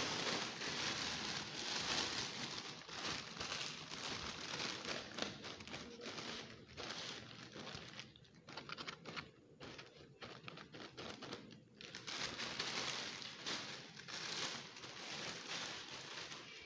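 Mylar foil balloon crinkling and rustling as hands squeeze and press it flat to push the air out. The crinkling is continuous at first, turns choppy with short gaps around the middle, then picks up again.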